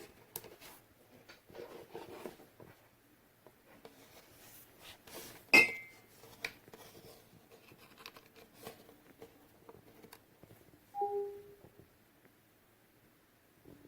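Handling noises: soft rustling and scattered clicks, with one sharper click about halfway through and a short, low two-note beep near the end.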